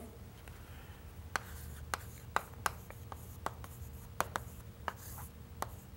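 Chalk tapping and scraping on a chalkboard as a word is written out: a string of sharp, irregular taps with short scrapes between them.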